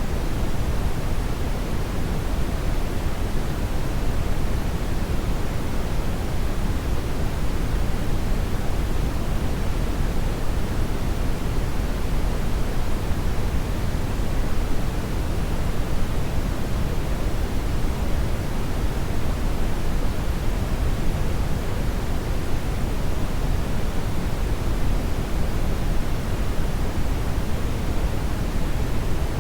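Hair dryer (blow dryer) running steadily: an even, deep rush of air with no change in pitch or level.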